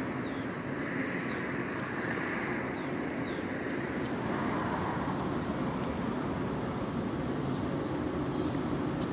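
Electric locomotive hauling a freight train of open wagons approaching on the line: a steady rush and rumble of the train on the track that grows slightly louder after about four seconds. A few short high chirps sound in the first three seconds.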